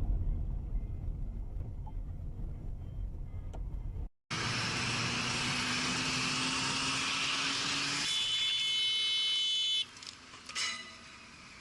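Dashcam audio of a car on the road: low engine and road rumble that fades over the first few seconds, then after an abrupt cut a steady hissing road noise with a low hum. A high, steady multi-tone sound lasts about two seconds near the end, followed by a short loud burst.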